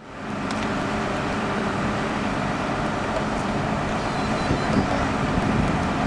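Engine of an amphibious backhoe dredger running steadily, fading in at the start.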